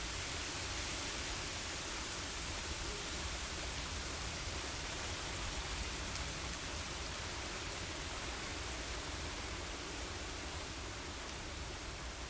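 Steady rain with wind: an even hiss with a low rumble underneath, easing slightly near the end.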